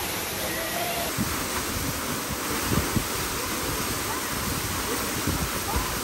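Waterfall pouring steadily, a dense even rush of falling water, with irregular low thumps of water striking from about a second in.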